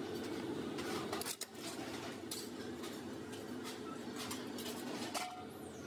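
Workshop machinery running with a steady hum, with irregular light metallic clinks as a sheet-steel motorcycle mudguard is handled in a press die.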